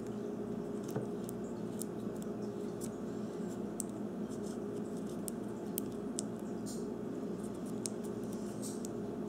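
Hands working a rubber band over a tape-wrapped pack of AA batteries: faint, irregular small clicks and crinkles over a steady low background hum.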